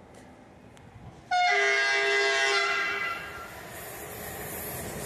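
Horn of an approaching electric passenger train, sounded in answer to someone waving from the platform. A brief high note steps down to a longer low note about a second in, lasting about two seconds before fading.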